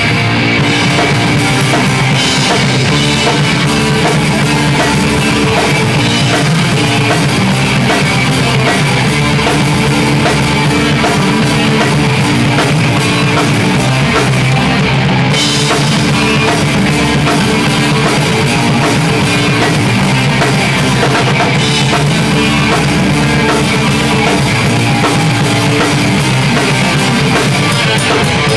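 A rock band playing live: a drum kit with crashing cymbals, electric guitars and a bass guitar, loud and unbroken.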